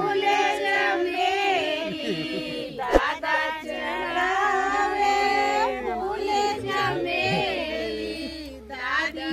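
High-pitched singing, with more than one voice line at a time, and a single sharp click about three seconds in.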